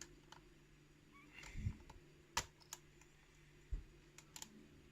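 Faint, scattered clicks and taps of a lock pick and tension wrench working the pin stacks of a heavily modded challenge lock core, with a couple of dull low knocks among them; the sharpest click comes about two and a half seconds in.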